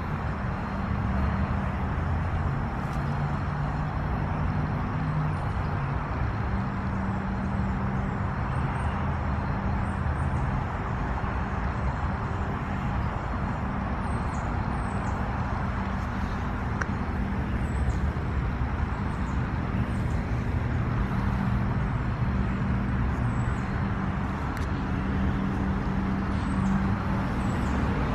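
Steady outdoor drone of road traffic, a low hum with an even hiss over it and slight swells, with faint high chirps now and then.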